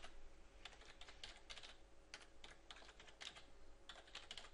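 Faint typing on a computer keyboard: a quick, irregular run of key clicks.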